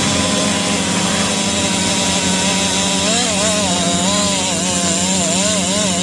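Long-bar gasoline chainsaw running at full throttle while cutting through a large tree trunk. About halfway through, its note starts wavering up and down as the chain works in the cut.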